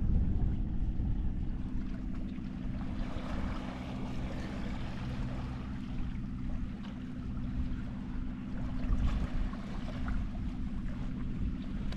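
Steady low engine drone with a rushing noise over it.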